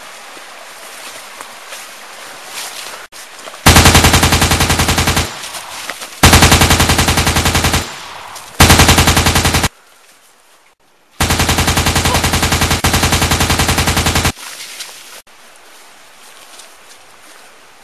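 Four bursts of rapid automatic rifle fire, each a steady string of evenly spaced shots. The last burst is the longest, about three seconds.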